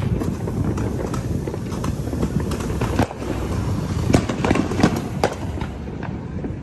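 Fireworks going off: a run of scattered bangs and crackling pops, the sharpest ones between about three and five seconds in, over a steady low rumble.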